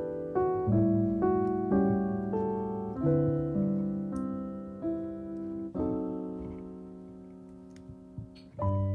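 Background piano music: slow, gentle chords, each struck and left to ring out, with one long chord held and fading away in the second half before new chords come in near the end.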